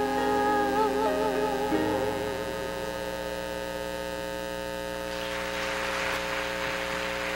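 The last note of a man-and-woman vocal duet, held with vibrato for about three seconds, over a steady electrical mains hum. The singing then stops, leaving the hum, and a hiss-like noise rises about five seconds in.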